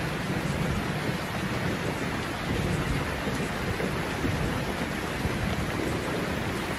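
Steady rain with a low rumble underneath, an even hiss with no single drops or thunderclaps standing out.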